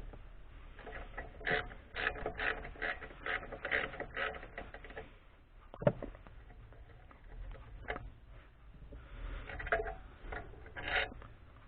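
Quick irregular clicking and scraping, like small hard objects being handled, for several seconds, then a few single sharp knocks.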